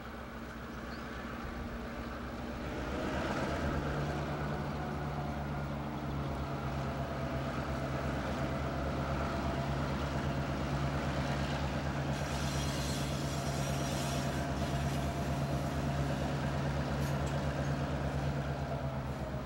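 EMD GP9 diesel locomotives, two-stroke V16 engines, working as they haul a loaded stone train toward the listener. Their steady drone grows louder over the first few seconds, and a higher hiss of wheel and rail noise joins past the middle.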